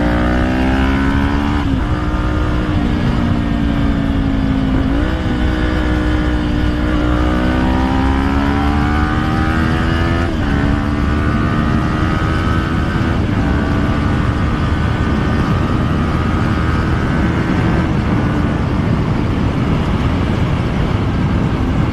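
Kawasaki Ninja 400 parallel-twin engine under way, its pitch climbing and dropping back at upshifts about 2, 5, 10 and 13 seconds in, then holding steady at cruise. A low rumble of wind runs underneath.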